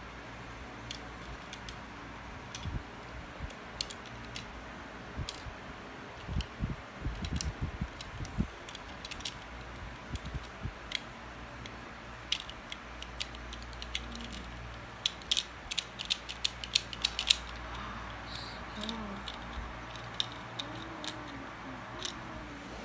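Small Lego brick safe being handled and worked, its plastic pieces clicking and knocking: scattered sharp clicks, a few duller knocks about a third of the way in, and a quick run of clicks around the middle.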